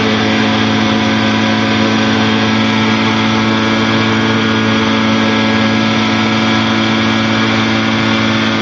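The Challenger II light-sport aircraft's engine running steadily in flight at a constant pitch, with the rush of air heard in the cockpit.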